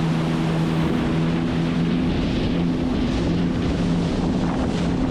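Sea-Doo personal watercraft engine running at a steady speed, its pitch holding even, with wind and water noise over it.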